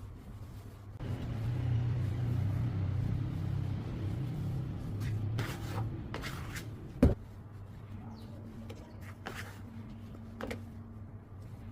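Low rumbling handling noise for a few seconds, then a single sharp knock about seven seconds in, followed by a couple of light clicks.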